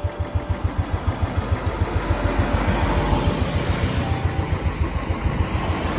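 Motorcycle engine running while riding, a fast, even low beat of exhaust pulses under the rush of passing air.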